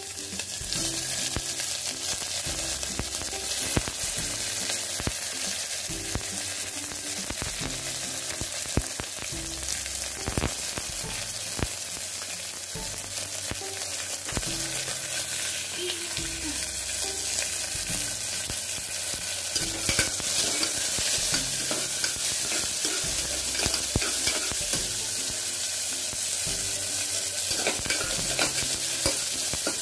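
Sliced onions sizzling as they fry in hot oil in a pressure cooker, stirred with a spoon that scrapes and knocks against the pot now and then.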